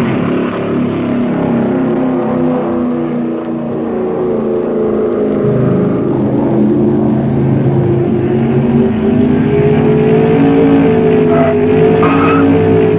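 Racing car engines running at speed, their pitch rising and falling, growing slightly louder in the second half.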